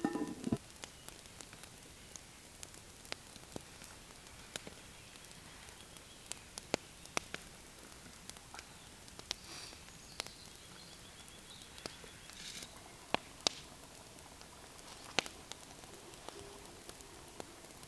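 Campfire crackling: irregular sharp pops, about one or two a second, over a soft steady hiss. At the very start a cast-iron Dutch oven lid clanks as it is lifted.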